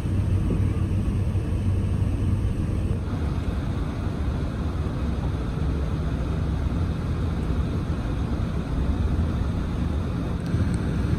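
Steady low rumble in the cabin of an Airbus A380 taxiing, its engines running at taxi power, with a little more hiss from about three seconds in.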